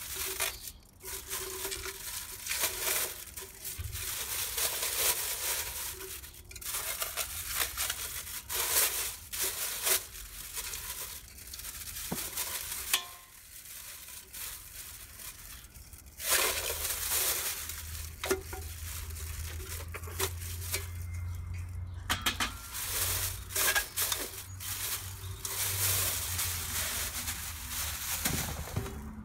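Clear plastic bag crinkling and rustling as it is pulled off a metal ash catcher pan, with light knocks and clinks of the pan and its wire frame.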